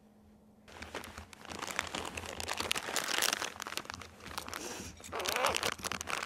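Plastic zip-top sample bags crinkling as they are handled, a dense crackly rustle that starts about a second in and is loudest near the end.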